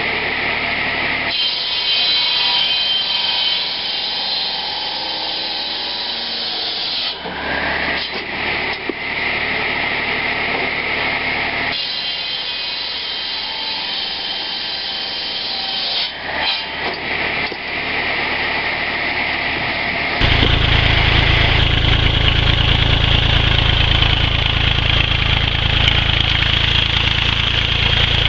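Tractor-driven cordwood saw's large circular blade cutting through a 9-inch green maple log, a loud high sawing sound that shifts as the blade works through the wood. About twenty seconds in it gives way abruptly to the old Massey Ferguson tractor's engine running steadily.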